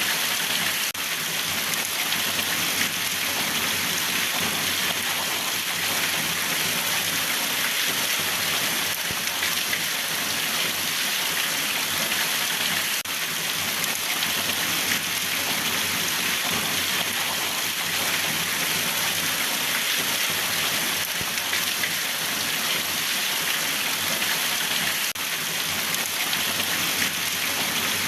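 Steady rain falling, an even hiss of many drops on a surface.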